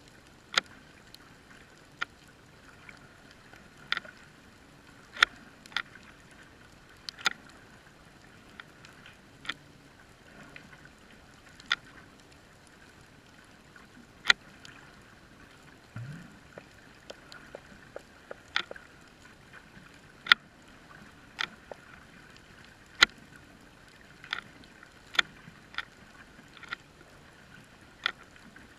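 Underwater sound through a GoPro's waterproof housing on the sea floor: sharp clicks and snaps every second or two over a faint steady hiss, with one short low rising grunt about sixteen seconds in.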